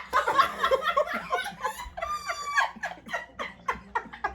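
People laughing hard, with cackling in quick repeated bursts and a high-pitched squeal about two seconds in.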